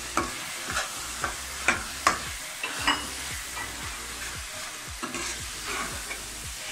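Minced meat, tomatoes and freshly added green peas sizzling in a kadai while a metal spoon stirs them, scraping and knocking against the pan. The knocks come about every half second and are loudest in the first three seconds.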